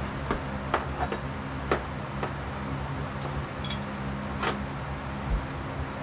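Irregular light metal clicks and taps from fitting hardware on a steel squat rack's upright and base, about seven in all, over a steady low hum.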